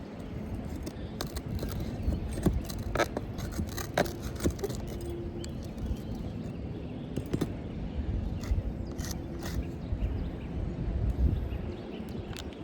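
Scattered scraping and clicking of hands and tools working on roof shingles, with low wind rumble on the microphone.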